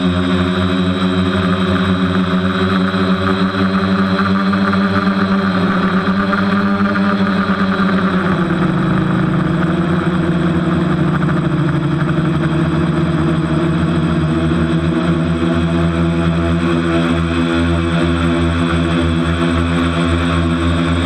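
A TBS Discovery quadcopter's electric motors and propellers, heard from the onboard camera, give a steady droning whine. Its pitch dips and rises as the throttle changes, lowest around nine seconds in. The quad is flying on a propeller the uploader calls dodgy.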